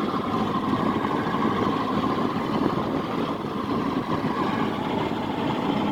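Boat with a jet ski engine running steadily, a continuous drone with a faint steady whine over it.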